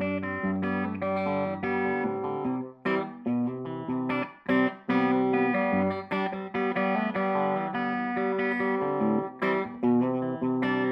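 Electric guitar played through a Tone King Gremlin amplifier on its rhythm channel: strummed, ringing chords, with a few short breaks about three and four and a half seconds in.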